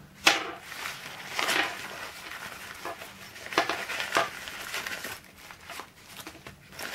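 Nylon drawstring pouch rustling and a clear plastic bag crinkling as they are handled and opened, in short irregular rustles, the sharpest about a quarter of a second in.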